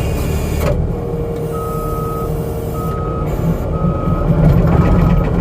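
New Holland C327 skid steer's backup alarm beeping about once a second over the steady running of its engine, starting about one and a half seconds in.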